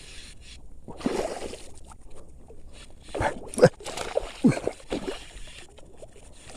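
Water sloshing and splashing in irregular bursts, with several sharp knocks in the middle of the stretch.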